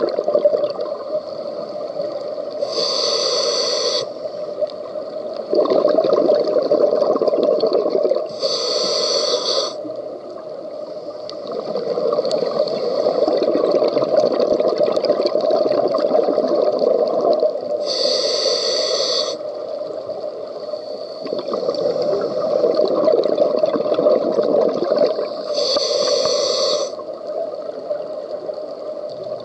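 Scuba diver breathing through a regulator underwater: four short hissing inhalations through the demand valve, each followed by a longer bubbling exhalation, in a slow, regular cycle.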